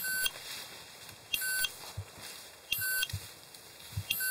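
Beeper collar on a pointing dog giving short, high electronic beeps about every 1.4 seconds, four in all. The fast, steady cadence is the kind a beeper collar uses to show the dog is standing on point. A few faint low thuds come between the beeps.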